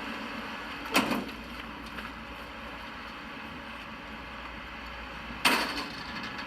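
Steady rumble and noise of a moving vehicle, with two sudden sharp bangs, one about a second in and one near the end.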